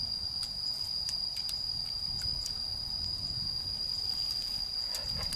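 An insect's continuous, steady high-pitched buzz, with a low rumble underneath and a few faint clicks.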